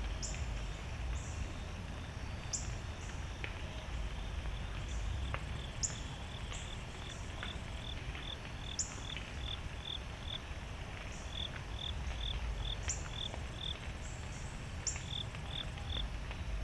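Woodland insects and birds calling: runs of short high chirps, two or three a second, with occasional higher sweeping calls, over a steady low rumble.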